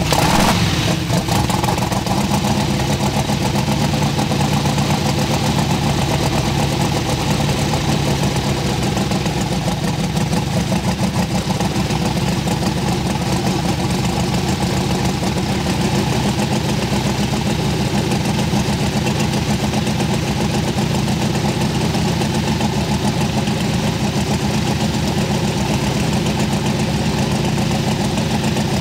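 Avia M462RF air-cooled nine-cylinder radial aircraft engine, a converted Soviet AI-14RF, catching with a brief burst of noise right at the start after its compressed-air start. It then runs steadily at an even speed, turning its propeller through the reduction gearbox.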